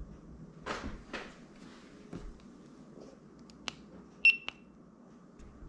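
Two short, high electronic beeps in quick succession a little after a sharp click, near the end. Earlier come two soft rustles of movement.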